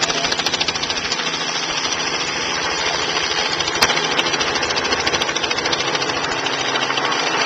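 Small helicopter flying low and slow, its main rotor chopping in a rapid, steady beat over the engine's drone. There is one sharp click about four seconds in.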